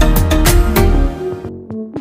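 Background electronic music with a steady beat; about a second in the bass and drums drop away, leaving sparse plucked-sounding notes.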